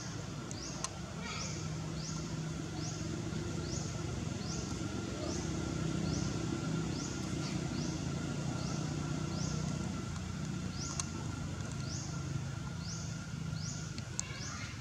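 Outdoor forest ambience: a short, high, rising chirp repeats about once a second over a steady low hum that grows louder in the middle.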